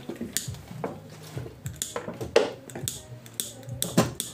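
A metal scooter clutch bell clinking and knocking as it is handled and washed over a plastic bowl: a string of irregular sharp clicks, the loudest about two and a half seconds in.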